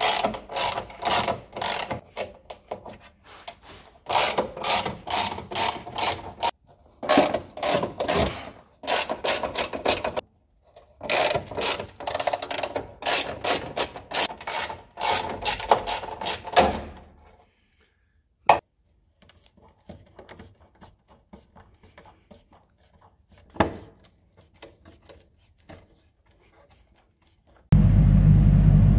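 Socket ratchet wrench clicking in rapid repeated bursts as stiff bolts are undone on a rusty car body; the clicking stops about two-thirds of the way through. Just before the end a loud, steady low rumble starts suddenly.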